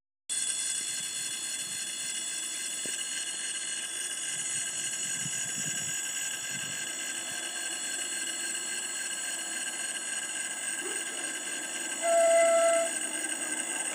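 Electric locomotive horn sounding one short, steady-pitched blast about twelve seconds in, as the train approaches, over a steady faint background noise.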